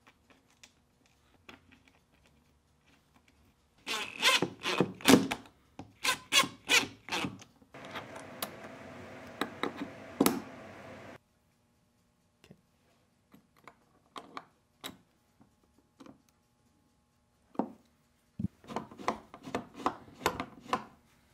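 Hand metalwork on a small steel lock part: a few seconds of rapid rasping strokes, then a small power tool runs steadily for about three seconds. After scattered clicks of handling, another run of rasping strokes comes near the end.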